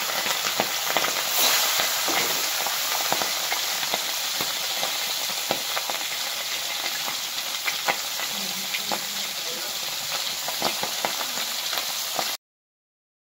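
Tengra (small catfish) frying in hot oil in a wok: a steady sizzle with many sharp crackles and pops. The sound cuts off to silence near the end.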